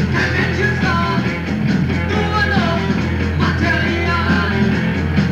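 Live punk-rock band playing, with gliding vocal or guitar lines over the beat, on a rough cassette tape recording. A steady low hum, typical of the power generator that was running at the gig, sits underneath.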